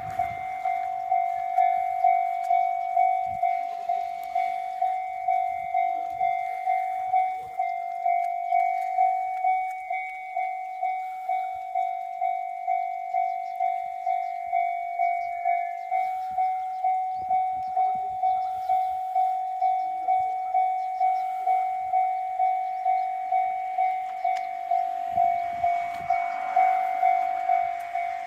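Japanese railway level-crossing alarm ringing its electronic warning bell, an even repeating two-tone ding of about one and a half strokes a second, signalling that a train is approaching.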